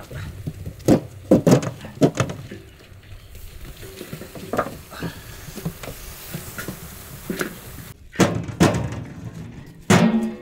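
Palmyra sprouts dropped and packed into a large metal cooking pot, a scatter of woody knocks and clatters against the pot. Near the end comes a louder ringing metal knock.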